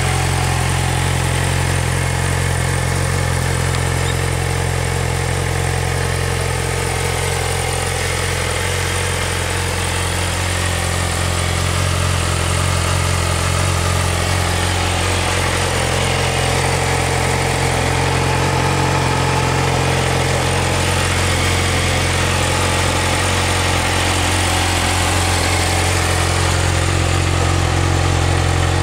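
Yamaha YZF-R6 inline-four engine idling steadily through its stock exhaust, with no revs, growing slightly louder in the second half.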